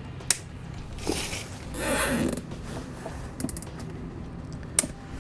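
Nylon zip ties being pulled tight with a ratcheting zip, the loudest rasp about two seconds in, and sharp clicks of side cutters snipping off the tie tails.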